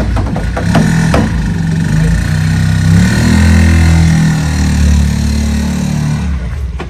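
Small engine of a loaded cargo motor-tricycle running and revving as it pulls away, its pitch rising and falling. A couple of knocks about a second in.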